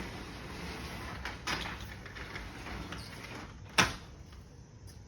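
Low handling noise with one sharp knock nearly four seconds in.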